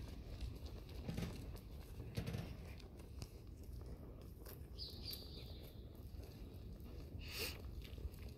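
Horses walking on soft arena dirt: faint, muffled hoof falls with light rustling.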